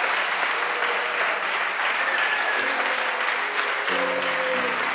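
Audience clapping along to a gospel song's instrumental accompaniment, with a few held musical notes heard faintly under the clapping near the end.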